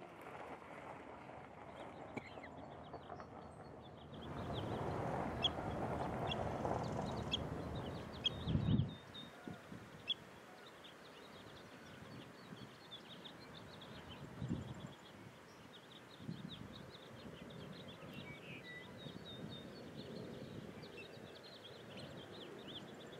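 Birds chirping, many short high calls scattered throughout, over a low background noise that swells for a few seconds about four seconds in. A thump near the nine-second mark.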